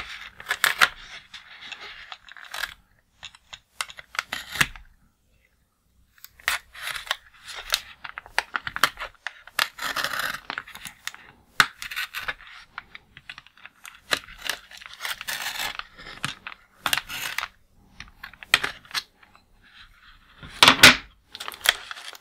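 A hobby knife slicing clear tape on a cardboard and plastic blister pack: scratchy scrapes and small clicks of the blade and packaging, broken by a few seconds of near quiet, with a louder crackle near the end.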